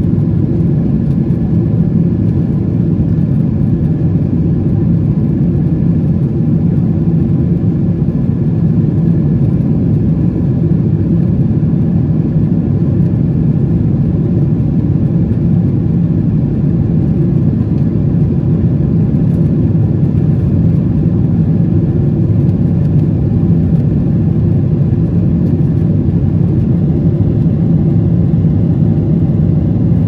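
Aircraft engine noise: a steady, even low drone that does not change in pitch or loudness.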